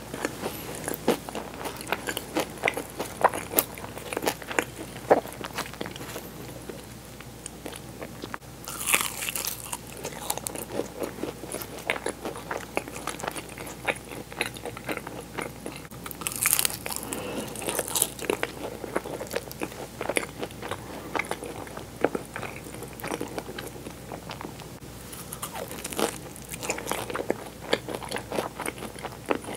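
Close-miked biting and chewing of Portuguese-style egg tarts: the flaky puff-pastry shells crunch and crackle in many small clicks, with louder bites about 9 seconds in, around 16 to 18 seconds, and near the end.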